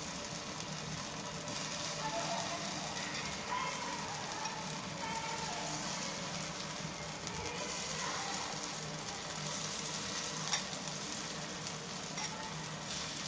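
Besan-coated raw banana slices shallow-frying in hot oil in a pan: a steady sizzle, with two faint clicks late on.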